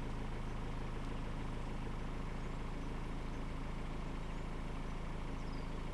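A vehicle engine running steadily, an even low hum.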